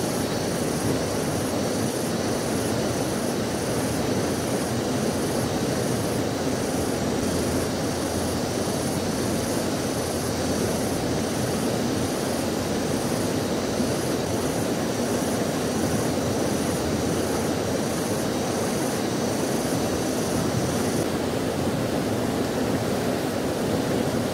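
Steady rushing of a fast, swollen river over rapids. Above it a faint high chirping pulses about twice a second and stops a few seconds before the end.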